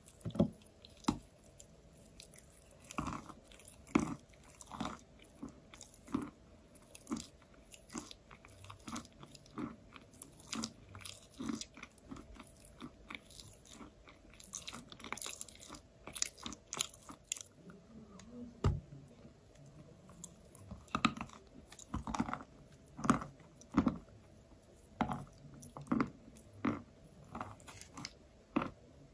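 Close-up chewing of a soft, crumbly lump of chalk: irregular crunches and clicks, one or two a second, loudest in a run near the end.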